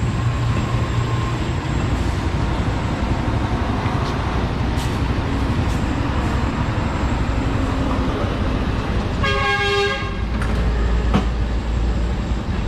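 Busy street traffic with engines and a steady rush of noise, then a vehicle horn honks once, briefly, about nine seconds in.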